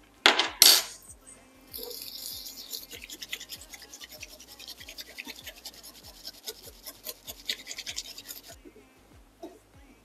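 Bamboo matcha whisk (chasen) whisking matcha briskly in a ceramic bowl: a fast, even scratchy swishing that starts about two seconds in and stops shortly before the end. Two brief loud sounds come just before it.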